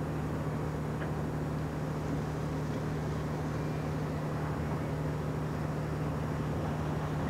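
Steady low engine drone with one constant hum that does not change in pitch.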